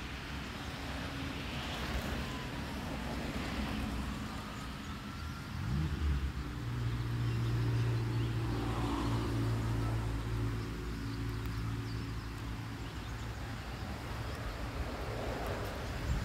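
A car engine running close by: a low hum that rises in pitch about five seconds in, holds steady, then fades after about twelve seconds, over a faint hiss of light rain.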